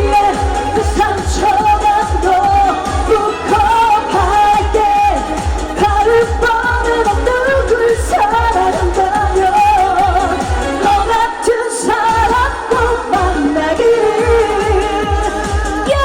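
Korean trot song played loud through a PA, a steady bass-drum beat under a wavering lead melody and held chords.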